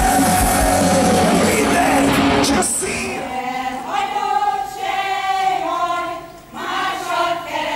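Loud live band music with a steady bass-drum beat and crowd noise, cut off about two and a half seconds in by a choir of older women singing. Their singing has a short break between phrases near the end.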